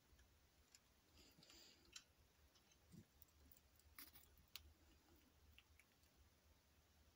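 Near silence with a few faint clicks and a soft rustle from a pet rat eating in its cage.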